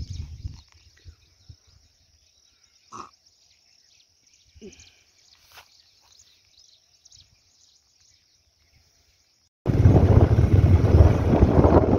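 Mostly quiet open-air background with a faint steady high hiss, then about ten seconds in a sudden cut to loud wind rumbling and buffeting on the microphone.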